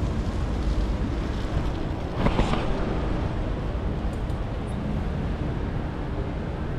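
Busy city street: a steady rumble of passing traffic, with one brief louder rush of noise about two seconds in.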